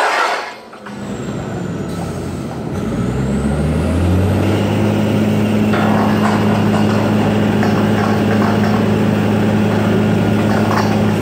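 A workover rig's engine revs up over about three seconds and then runs steady and loud under load, as the rig hoists. A brief loud hiss of air comes right at the start.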